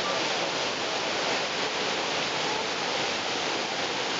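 Waterfall at Niagara Falls: the steady rush of a large volume of falling water, an even, unbroken noise.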